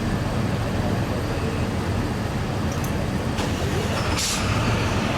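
Steady low rumble of vehicles and engines, with a sharp click a little past three seconds in and a short hiss about a second later.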